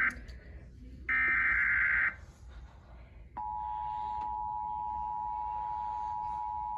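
Emergency Alert System tones: the tail of one SAME digital header burst, another harsh data burst of about a second starting about a second in, then about three and a half seconds in the steady two-tone attention signal starts and holds. This sequence opens the broadcast of a severe thunderstorm warning.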